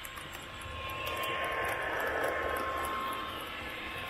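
Model railway spoil train rolling along the track, heard from a camera riding on the cars: a steady rolling rumble of wheels on rails that swells in the middle, with a faint regular ticking of about four clicks a second and a thin steady tone.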